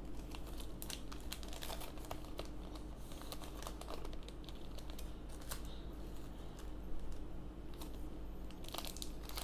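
Foil Yu-Gi-Oh! booster pack wrapper crinkling in the hands as it is torn open. It gives a run of quick, irregular crackles that grows louder and denser near the end.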